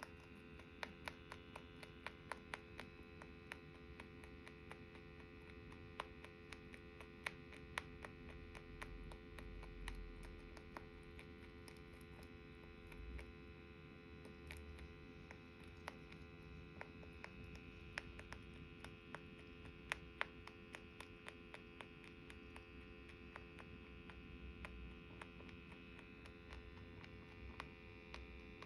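Quiet room with a steady electrical hum and scattered faint, sharp clicks, more frequent in the first half.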